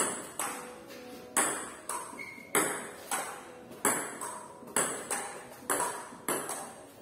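Table tennis rally: the ball clicking off the paddles and the table in a steady alternating rhythm, a little under two hits a second, each hit ringing briefly off the bare walls.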